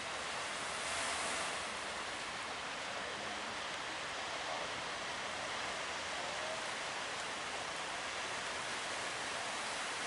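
Steady rush of surf and rough water, swelling slightly about a second in.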